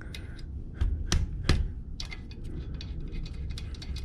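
Hand tools at work on a car's brake assembly: three sharp knocks, then a run of light, irregular clicks.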